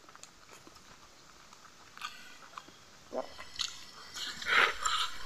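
A person chewing food close to the microphone while eating by hand: quiet at first, then a run of short crunches and wet mouth noises, loudest near the end.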